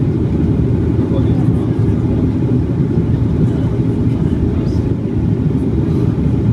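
Airliner engine noise heard from inside the passenger cabin during the landing approach: a steady, loud, low rumble.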